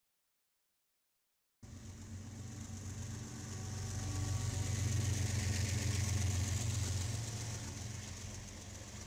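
BNSF diesel-electric locomotive passing close by with a coal train: a steady engine drone with low humming tones over a hiss of wheels on rail. It starts abruptly about one and a half seconds in, swells to its loudest in the middle and eases off as the loaded hoppers follow.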